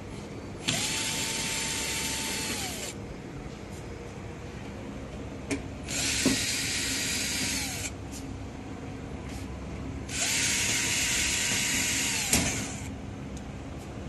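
Power drill run three times in bursts of about two seconds, each time spinning up to a steady whine and winding down, with small clicks between the runs.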